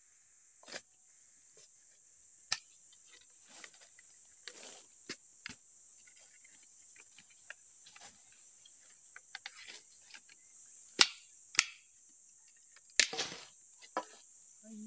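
Sharp cracks and snaps of a glued gerunggang-wood mandau sheath being pried apart with a blade, the glue joint splitting and the wood breaking. The cracks come irregularly, a few faint ones through the middle and the loudest several in the last four seconds. Insects drone steadily in the background.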